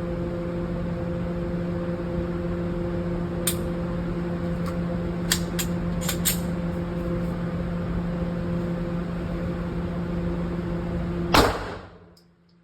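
Several sharp clicks from a pistol being dry-fired and worked by hand, over a steady low hum. Near the end comes one loud sharp bang, and then the sound drops away abruptly.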